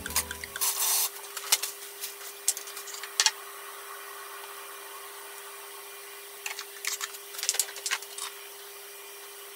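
Light clicks and taps of kitchen utensils and a small glass jar being handled on a counter, with a short rustle about half a second in and a cluster of clicks about two thirds of the way through, over a steady faint hum.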